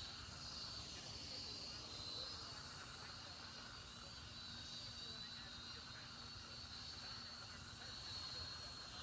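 Small toy quadcopter's electric motors and propellers whining as it hovers and skims low over concrete, the thin whine wavering up and down in pitch as the throttle changes, over a steady background hiss.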